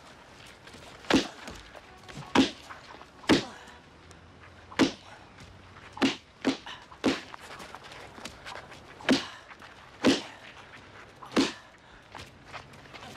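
Film punch sound effects: a string of about ten heavy fist blows landing, roughly one a second with a quicker run of three in the middle.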